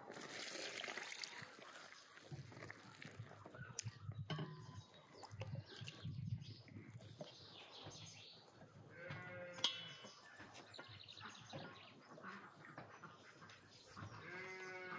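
Bleating livestock, with wavering calls about two-thirds of the way through and again near the end, over soft squishing of hands kneading flour dough in a metal bowl.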